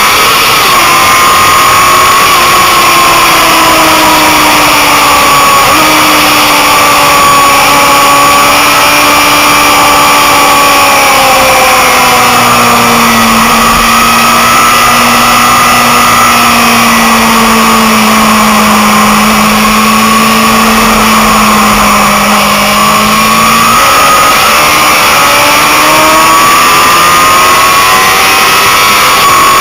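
Motorcycle engine heard on board at track speed under heavy, steady wind rush. The engine note sinks slowly through most of the stretch and climbs again about three quarters of the way through.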